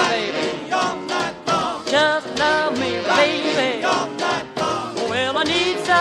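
A rock and roll record playing: a singer over a band with a steady beat.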